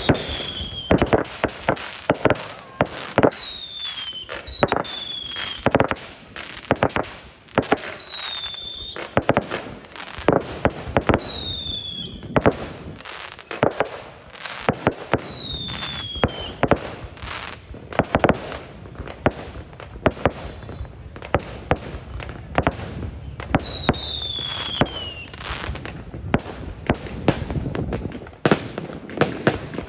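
Fireworks display: a dense, irregular run of sharp bangs and crackles, with about seven whistles that slide down in pitch.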